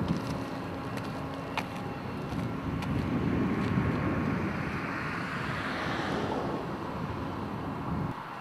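Outdoor road-traffic rush with wind on the microphone; a vehicle passes, its noise swelling from about three seconds in and fading away by about seven. The sound drops suddenly just before the end.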